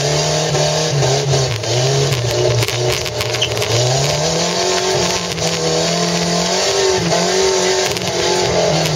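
Volvo 240's engine revving up and down repeatedly as the car is driven across a field, heard from inside the cabin, with scattered knocks and rattles.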